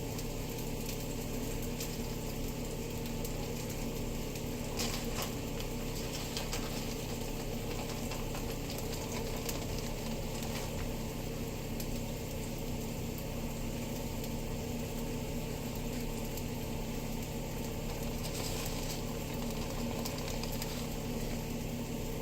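Food frying in a pan, a steady fine crackle, over a constant motor hum from a kitchen appliance.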